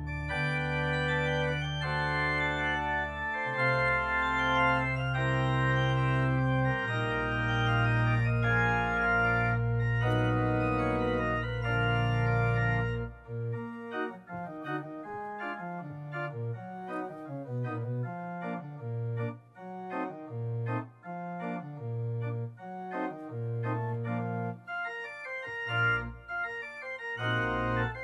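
Organ music: long sustained chords over a held bass note for about the first half, then shorter, detached notes moving more quickly.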